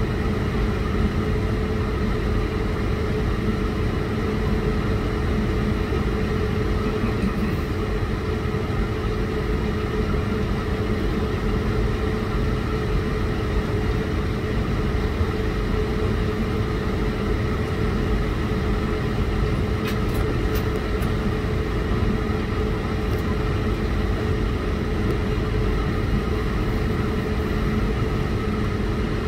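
Steady airliner cabin hum while the plane waits on the ground: an even rumble of air-conditioning and engine noise with a constant mid-pitched tone running through it.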